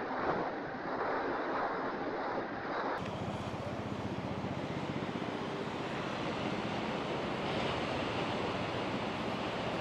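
Surf on a beach with wind buffeting the microphone. About three seconds in the sound changes and a faint steady low hum runs underneath.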